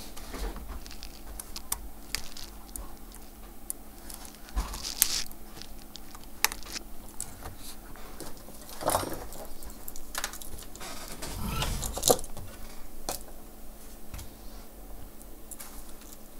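Scattered light clicks, taps and rustles of small parts and tools being handled on a repair bench, over a faint steady hum.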